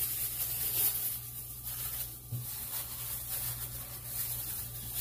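Disposable plastic glove rubbing and rustling against oily raw ribeye steaks as they are handled, over a steady background hiss and low hum.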